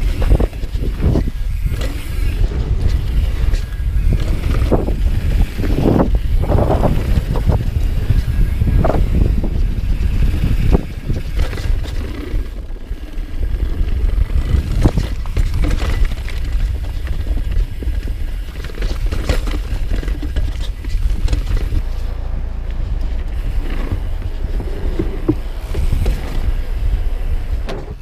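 Commencal Meta V4.2 mountain bike ridden fast down a dirt and rock trail: tyres rumbling over the ground and the bike rattling and clattering over bumps, roots and rocks, with a heavy low rumble throughout.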